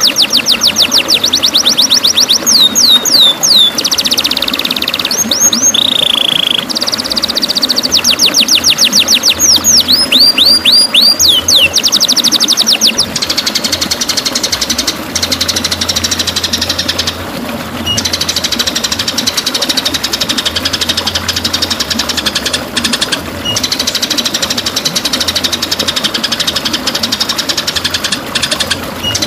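Recorded white-rumped shama (murai batu) song used for tutoring: fast runs of rapidly repeated sweeping whistled notes, the dense 'tembakan' bursts. From about halfway these give way to a continuous rapid rattling chatter.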